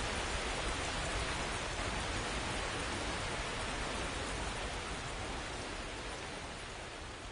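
Steady rain falling, slowly fading out.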